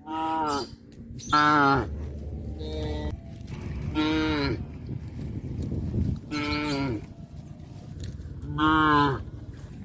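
Cattle mooing: about six short moos in a row, one to two seconds apart, each dropping in pitch at the end. The loudest come about a second and a half in and near the end.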